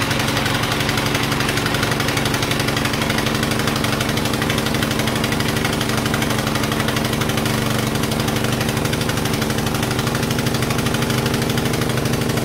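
Single-cylinder four-stroke Tecumseh Vector 6.75 HP engine of a vintage DR trimmer/mower, running steadily. It is burning off oil that the owner suspects got into the cylinder while the machine lay on its back.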